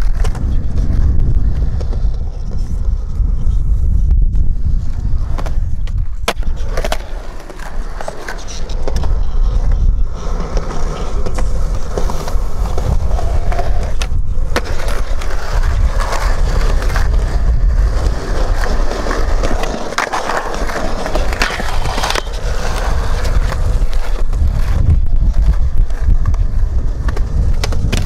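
Skateboard wheels rolling over concrete, a steady low rumble, broken several times by sharp clacks of the board's tail popping and landing.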